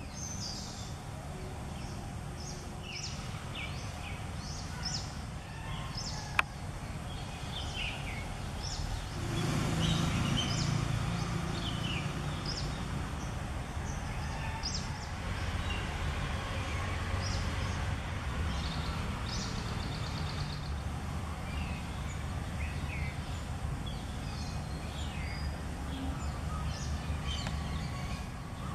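Small birds chirping in short, scattered high calls over a steady low background rumble that swells about a third of the way in. A single sharp click is heard about six seconds in.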